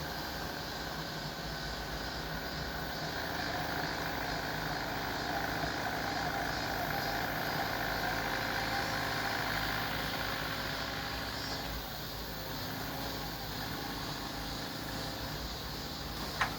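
A heavy engine runs steadily, swelling louder through the middle and then easing off, with a constant wash of noise underneath.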